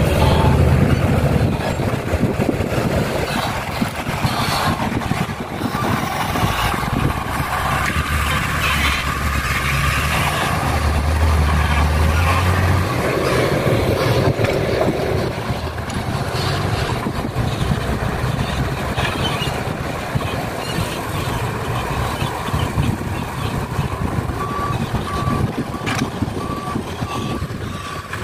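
Diesel engines of an excavator and dump trucks running under load, rising and falling in pitch. Near the end a reversing alarm beeps steadily.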